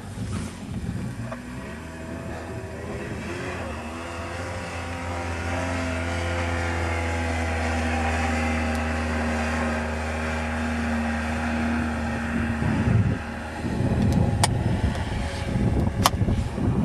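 ATV (four-wheeler) engine running, its pitch slowly rising, until the engine tone breaks off about 13 seconds in. After that, wind buffets the microphone with a rough rumble, and there are two sharp clicks.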